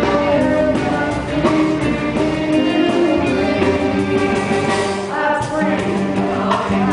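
A song played by a band, with several voices singing together.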